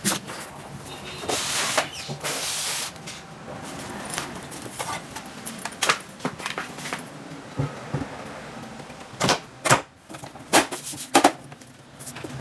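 Handling noise from a rack-mount power amplifier being lifted out of its foam packing and set into a flight-case rack: rubbing and rustling of the packing in the first few seconds, scattered light clicks, then four sharp knocks and clunks toward the end as the amplifier meets the case.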